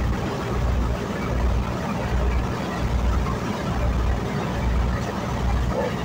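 Motorised river boat's engine running steadily, a low regular throb under the rush of water and wind.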